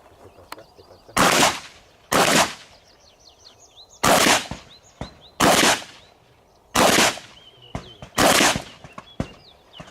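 Shotgun firing six shots during a practical-shooting stage: two about a second apart, then four more at roughly one-and-a-half-second intervals. Each shot is sharp and loud with a short echo.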